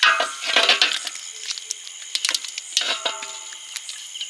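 Small live fish tipped from a round hand net into an aluminium basin. The fish flap and clatter against the metal, which rings briefly, in two bursts: one at the start and one about two seconds in.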